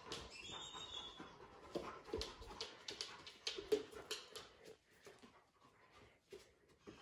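A Doberman trotting about while searching, its claws clicking on the hardwood floor, with sniffing and breathing. The clicks go quieter a little past the middle as the dog moves onto the rug.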